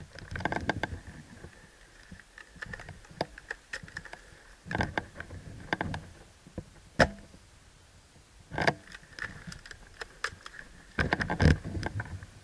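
Irregular bursts of crunching and rustling, like footsteps and gear moving through dry brush, with a single sharp click about seven seconds in.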